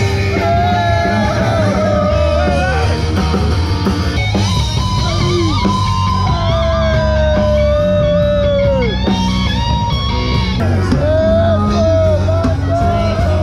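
Band music with guitar: a melody of long notes that bend and fall, over a steady bass line.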